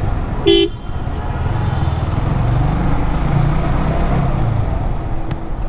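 Motorcycle riding through city traffic: steady engine and road rumble, with a short horn beep about half a second in.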